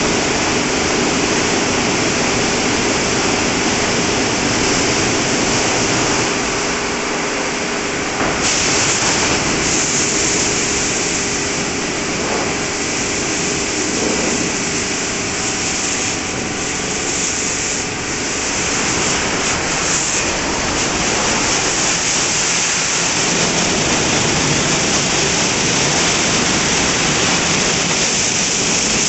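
WashTec SoftCare 2 Pro rollover car wash in its brush-wash stage. The rotating brushes scrub the car under a steady spray of water, with the machine's motors and pumps humming beneath. A sharper, louder spray hiss cuts in about eight seconds in.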